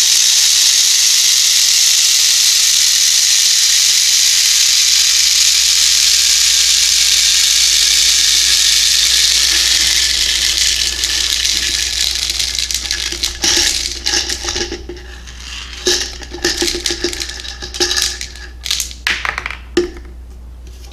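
Copper-coated steel BBs pouring from a plastic bottle into a 3D-printed plastic weight shell: a dense, continuous rattling hiss of thousands of pellets. After about ten seconds it thins to trickles and separate clicks as the bottle empties.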